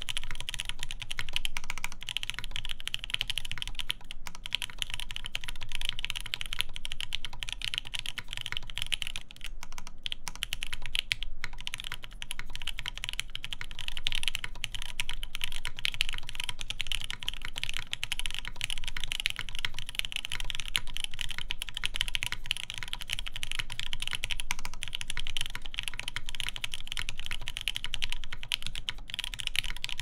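Continuous fast typing on a KFE CE mechanical keyboard with lubed JWK Snow White linear switches, a polycarbonate plate and PBT keycaps: a dense run of keystrokes, broken by short pauses about four seconds in and again around ten seconds.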